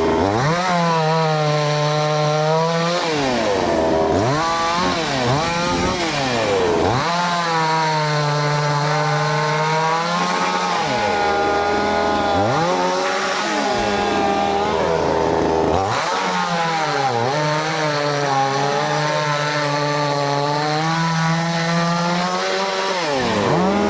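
Chainsaw engine running hard, its pitch dipping several times and climbing back as the chain bogs down in the wood and then frees up.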